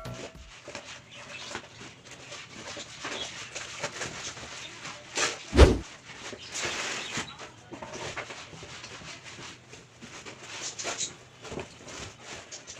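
Packaging and objects being handled, with scattered rustles and light taps and one thump about five and a half seconds in.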